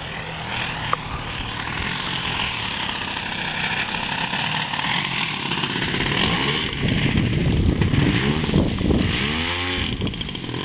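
30cc two-stroke gasoline engine of a radio-controlled Laminar Yak model plane, exhausting through a beer-can muffler, running in flight. In the second half it grows louder and its pitch swoops down and up again and again as the plane makes passes.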